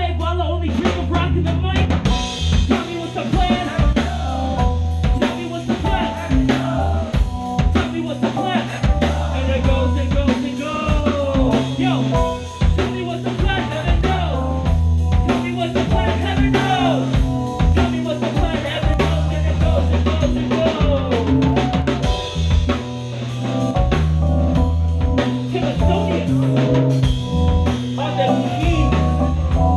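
Live rock band playing: a drum kit drives a steady beat of snare and bass drum under guitar and keyboard, with a bass line underneath.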